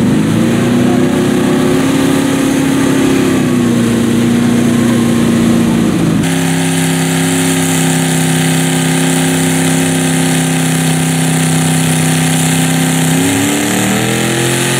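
Mud-bog truck engine held at high revs with its tyres spinning in the mud: the pitch climbs at the start, holds steady, then dips slightly. About six seconds in the sound cuts abruptly to another steady high-revving engine run, which climbs in pitch again near the end.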